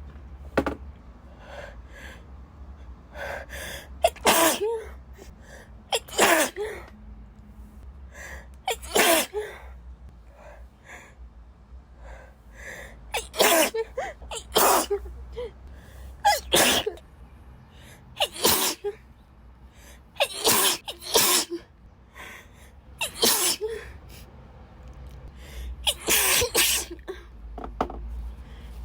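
A woman sneezing again and again, about a dozen loud sneezes every two or three seconds, with quick gasping in-breaths leading into them.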